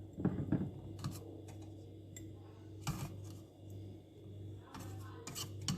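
A few light clicks and taps from hands handling dried figs and utensils, clustered about half a second in and near the end. Under them runs a faint low hum that swells and fades about twice a second.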